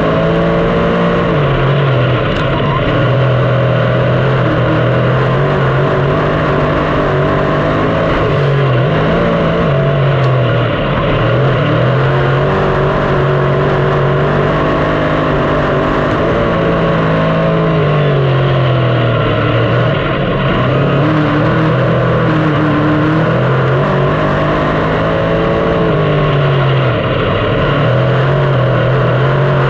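A 358 small-block dirt modified race car's V8 engine running hard on the track, its pitch climbing and dropping back in a repeating cycle every several seconds, lap after lap.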